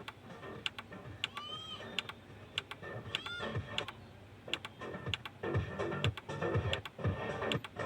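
Music playing through a Yamaha RX-V1200 AV receiver, broken by repeated sharp clicks and crackles. The crackling, disturbing sound is the receiver's audio fault.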